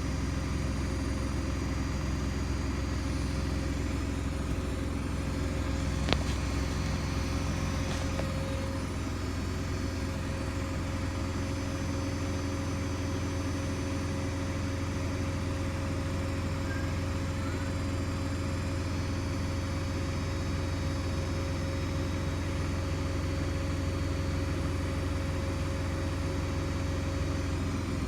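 Hoover DXC C49W3 washing machine running loudly, a steady low drone with a steady whine above it. A single sharp click sounds about six seconds in.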